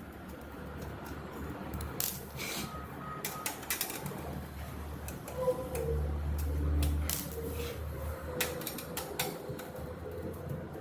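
Scattered small clicks and knocks of hardware being handled, over a low steady hum.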